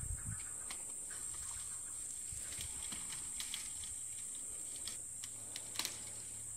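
Insects buzzing steadily in the bush, a high-pitched even drone, with scattered faint clicks and one sharper snap near the end.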